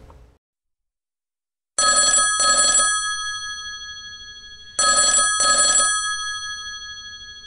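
Telephone bell ringing twice, starting about two seconds in and about three seconds apart; each ring is a quick double ring-ring whose tone hangs on and fades away.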